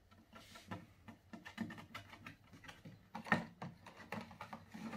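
Scattered light clicks and taps of a plastic blister-packed toy car being handled on a tabletop, with a sharper click a little over three seconds in.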